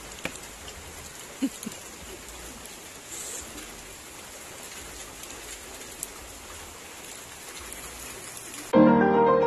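Steady rain falling, an even hiss with a few faint ticks. Piano music cuts in abruptly near the end.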